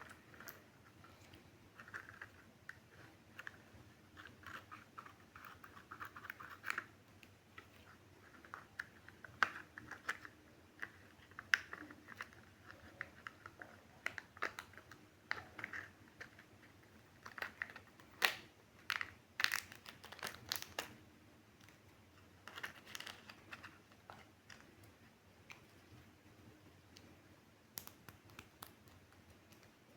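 Surprise-egg packaging being unwrapped: quiet crinkling and tearing of wrapper, with scattered sharp clicks and taps, thickest a little past the middle.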